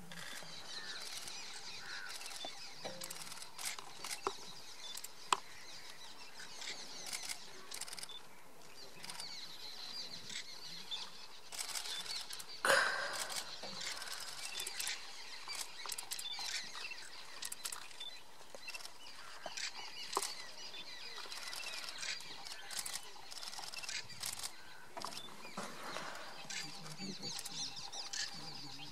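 Wild birds chirping and twittering over faint outdoor ambience, with scattered small clicks and one louder short call about halfway through.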